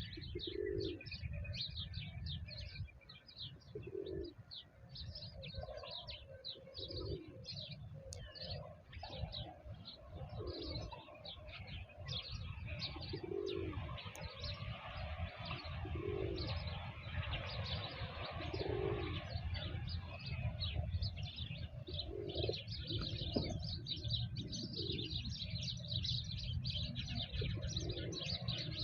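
Doves cooing, a low coo repeated every few seconds, while small songbirds chirp busily throughout, over a steady low rumble.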